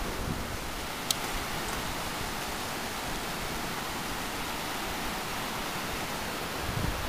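Steady rush of sea surf breaking along the beach. A single brief sharp click comes about a second in.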